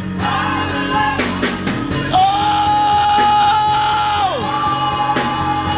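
Gospel choir singing live with keyboard accompaniment. About two seconds in, a voice holds one long high note for about two seconds, then slides down.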